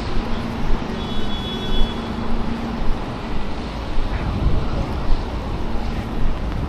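City street traffic: a steady wash of road noise, with the low steady hum of a nearby vehicle's engine that fades about three seconds in and returns near the end.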